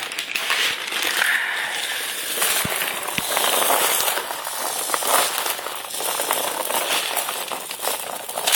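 Handfuls of plastic airsoft BBs rattling and clicking in a crinkling plastic bag while an airsoft gun is reloaded, with one sharp knock at the very end.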